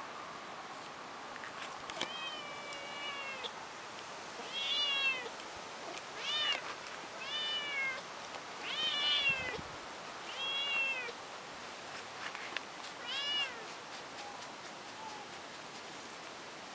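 Tabby kitten meowing repeatedly, seven short, high, arching meows about a second and a half apart, stopping a few seconds before the end.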